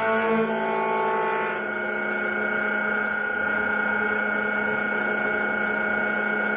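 CNC mill-turn machine running, a steady whine of several tones that dips slightly in pitch early on and shifts to a different set of tones about a second and a half in.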